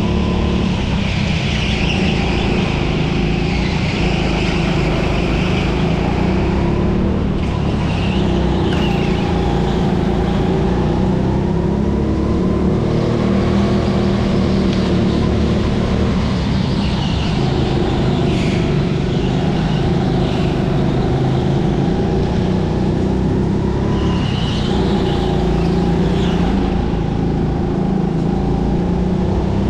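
Indoor racing kart's engine running hard, its pitch rising and falling as the driver works through the corners. Short high squeals come in now and then.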